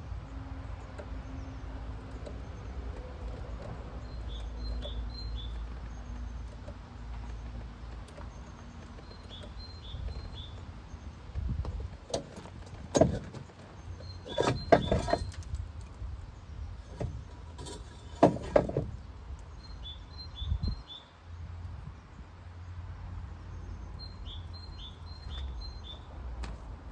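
Several loud sharp knocks and clattering in the middle, over a steady low rumble. A bird repeats a short phrase of three or four chirps every few seconds.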